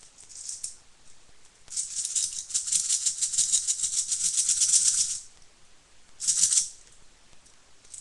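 Loose plastic BBs rattling inside a small red plastic magazine shaken by hand. A brief shake comes near the start, then a long run of quick shaking for about three and a half seconds, then one more short shake about six seconds in.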